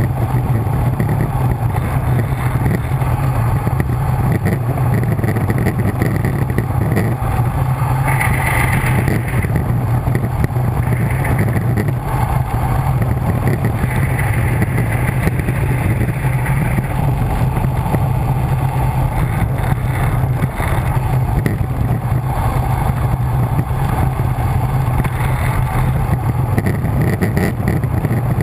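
Loud, steady wind rush and rumble on the microphone of a camera carried on a road bike descending at speed.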